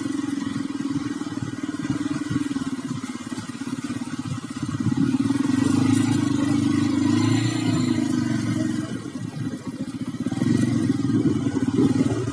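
Motorcycle engine running at low speed, with the throttle opened a little about five seconds in and again near the end.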